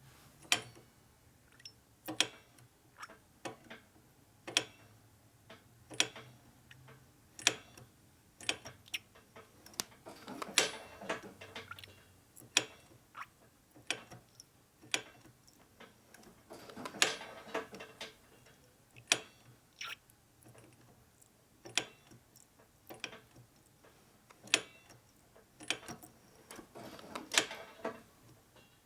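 Hydraulic brake lever pumped over and over to bleed air from the brakes: a sharp click about every one and a half seconds, with busier rattling clicks at a few points.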